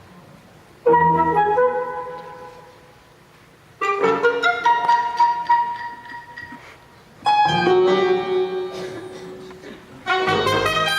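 Recorded musical-theatre music playing four loud sustained chords, each struck and left to fade, about three seconds apart.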